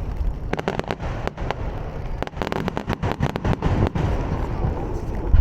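Aerial fireworks crackling: a rapid, irregular run of sharp pops and snaps over a low rumble, with heavier bursts booming just before and after.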